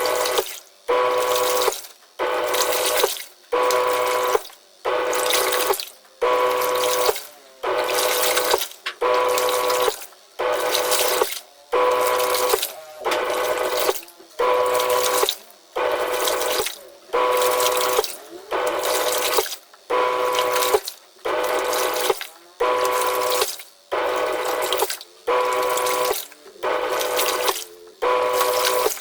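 Twin-tub washing machine's wash tub churning water and clothes in short, even bursts about once a second, each burst carrying a steady whine, with brief pauses between.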